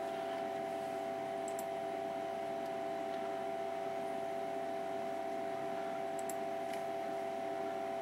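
Steady electrical hum with a few faint computer mouse clicks scattered through it.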